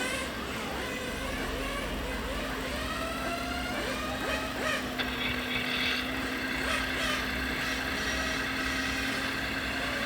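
Electric motors and gearboxes of RC model trucks and construction machines whining, their pitch slowly rising and falling over a steady hum, with background chatter and a brief click about halfway through.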